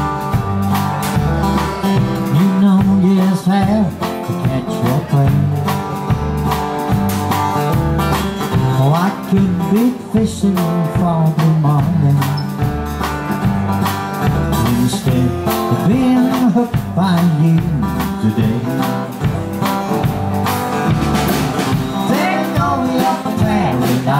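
Live country band playing, with guitar over a bass line and a steady drum beat.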